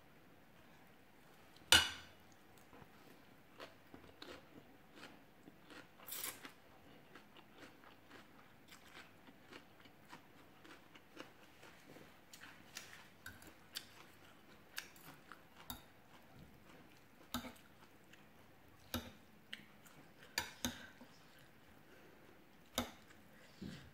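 Close-up eating sounds: chewing and crunching of rice noodles and fresh vegetables, with scattered sharp clicks of a fork and spoon against a plate. One click about two seconds in is much louder than the rest.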